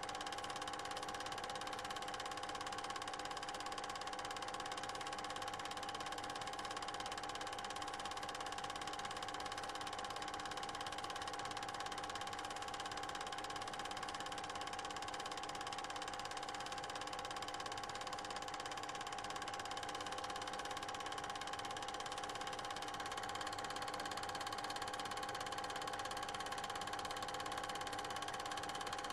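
Steady hum with hiss, several held tones in it: background noise from the transfer of an 8mm cine film, not a sound of the filmed scene.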